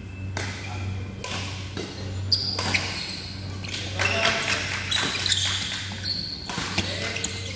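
Badminton rackets hitting a shuttlecock in a doubles rally: sharp hits a second or more apart, with short high squeaks of court shoes, over a steady low hum in a large hall.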